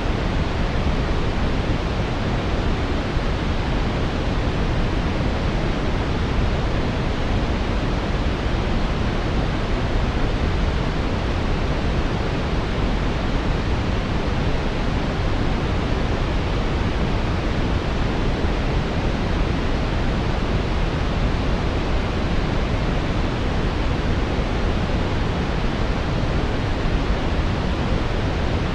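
Steady brown noise: an even, unchanging rush of synthetic noise weighted toward the deep end, with no music or other sounds.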